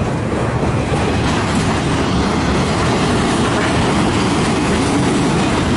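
Freight train cars rolling past, with a steady noise of steel wheels running on the rails.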